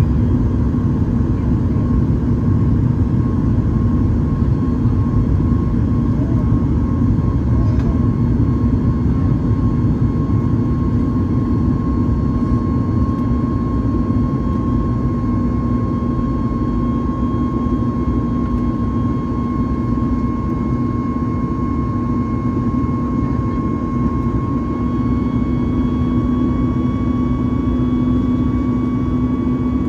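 Cabin noise inside a Boeing 737 MAX 8-200 climbing after takeoff: a steady, loud rumble of airflow and CFM LEAP-1B engines. Through it run a steady low hum and a higher engine tone that edges slightly up in pitch near the end.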